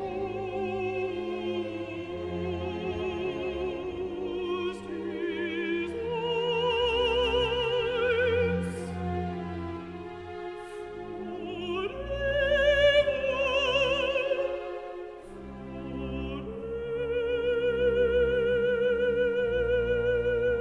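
Baroque oratorio lament: a solo alto voice with wide vibrato sings long held notes over a sustained string orchestra, pausing briefly between phrases.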